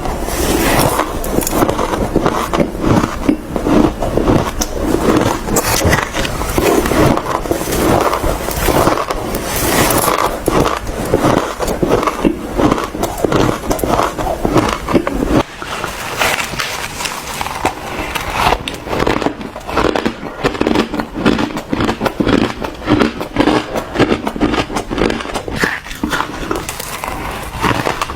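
Close-miked crunching and chewing of ice, a dense run of sharp crackling bites. A low rumble underneath stops about halfway through.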